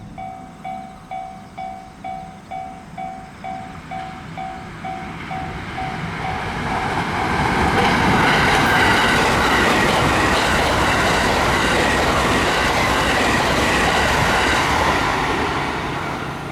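Level-crossing warning bell ringing about twice a second, then a train passing over the crossing, its noise building from about six seconds in and fading near the end.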